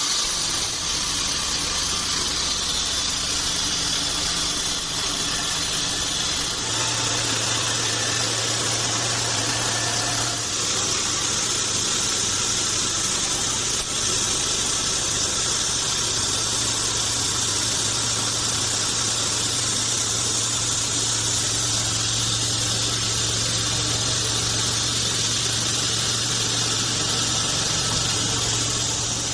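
Band sawmill running: a steady high hiss over a low motor hum, the hum growing stronger about seven seconds in.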